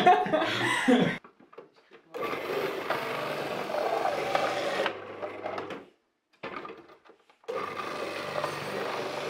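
Small electric food processor running as carrots are pushed down its feed tube, a steady motor whir with cutting noise. It starts about two seconds in, stops for a moment past the middle, and starts again.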